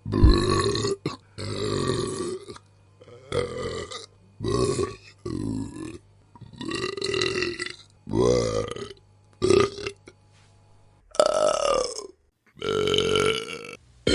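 A string of about ten human burps, one after another, each a second or shorter, with short pauses between them.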